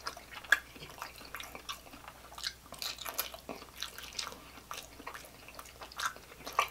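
Close-up chewing of grilled sausage: wet mouth smacks and clicks in an irregular run, with one sharp click about half a second in.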